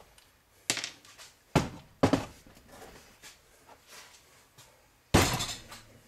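Hard plastic dishwasher door panels knocking and clattering against a wooden workbench as they are handled: three sharp knocks in the first two seconds, then a louder thump about five seconds in as the heavy door is set on the bench.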